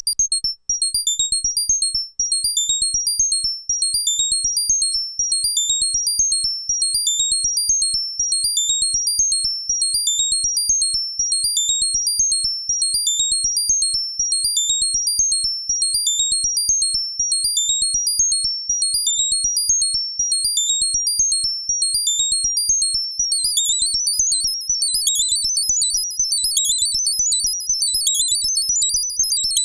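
Arturia MicroBrute analog synthesizer running a fast step-sequence of very high-pitched bleeping notes, pushed far up in pitch by the hidden effect of programming the sequence while holding the tap button. About 23 seconds in, the pattern becomes denser, with notes sliding in pitch.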